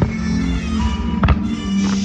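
Music with sustained notes, and a sharp bang about a second and a quarter in.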